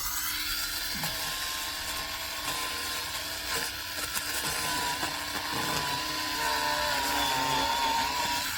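Ryobi 18V brushless pruning chainsaw running and cutting through a thick tree root. It runs steadily with a high whine that drops slightly in pitch near the end, then stops.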